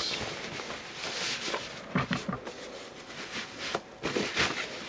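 Plastic wrapping crinkling and rustling as it is pulled off a speaker dock, with a couple of soft knocks as the unit is handled.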